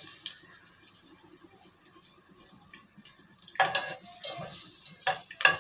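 Ginger frying in oil in a pot with a faint sizzle, and a metal utensil scraping and knocking against the pot four or five times in the second half as it is stirred.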